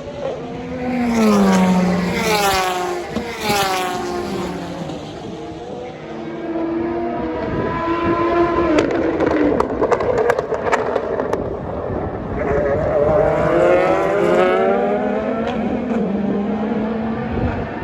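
Endurance race cars passing one after another, their engine notes sweeping down as one goes by, then rising and falling away as the next arrives. A run of sharp cracks comes about halfway through, around the middle of the passes.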